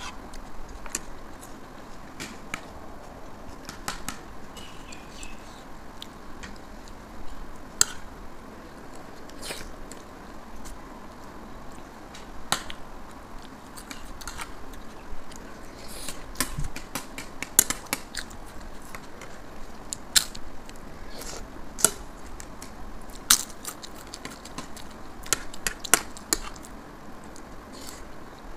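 Metal spoons clinking and scraping on ceramic plates in sharp, irregular clinks, with chewing of rice and red kidney bean curry.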